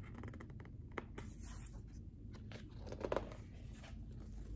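Pages of a hardcover picture book being handled and turned: faint paper rustling and light clicks, with one sharper tick about a second in.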